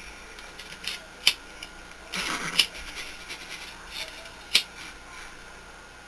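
A few scattered sharp clicks over quiet room tone, with one short breathy burst of a stifled laugh about two seconds in.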